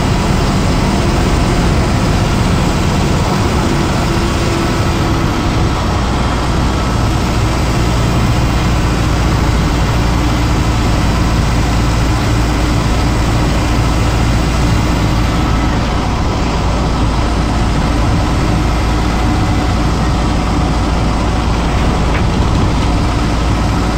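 BMC 1100FE single-deck bus's diesel engine pulling along at road speed, heard inside the passenger cabin as a steady drone mixed with road noise. The engine note steps down slightly about six seconds in.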